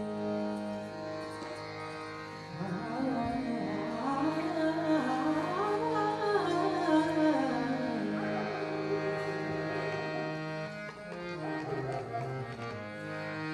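Background music in an Indian classical style: a steady drone under a melody that glides up and down.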